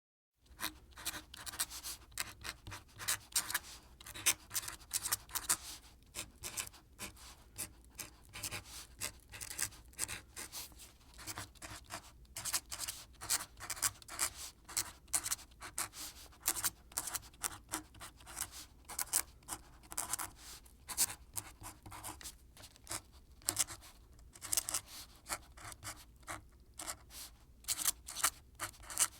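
Quill pen scratching across paper in quick, irregular strokes, with short pauses between bursts of writing.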